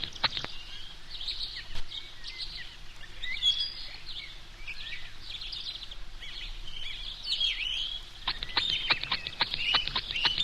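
A baby sucking on a pacifier, making rapid clicking sounds and high, bird-like chirping squeaks. The clicks come in quick runs at the start and again near the end, with the squeaky twittering in between.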